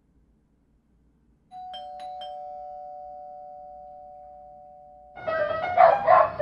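Two-note ding-dong doorbell chime, high then lower, ringing out and slowly fading. About a second before the end, dogs break into loud, excited barking and yipping.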